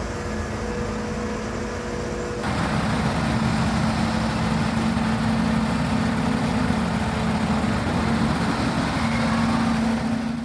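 Diesel engines of a Volvo crawler excavator and an articulated dump truck running steadily with a steady hum while the excavator loads the truck. The sound jumps louder about two and a half seconds in.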